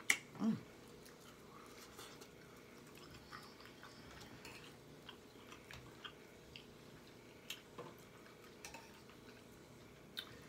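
A person eating shrimp: quiet chewing and wet mouth smacking, with a sharp click at the start and small scattered clicks throughout.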